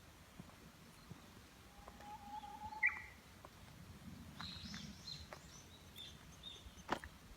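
Japanese bush warbler singing faintly: one long held whistle that breaks into a quick rising flourish about three seconds in. Thin high chirps follow, and a sharp click comes near the end.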